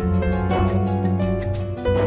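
Instrumental music, a song's intro without singing: a quick run of short, repeated notes over a sustained low bass.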